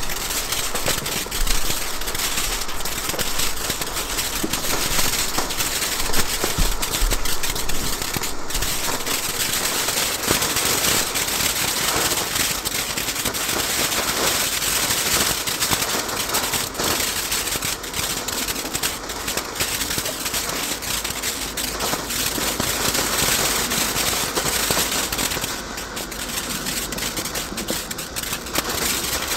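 Ground firework fountains burning: a continuous loud hiss of spraying sparks, dense with crackles and small pops, with no real gap.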